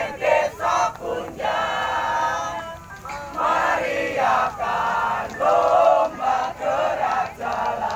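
A group of voices singing together: short chanted syllables at first, then longer held notes.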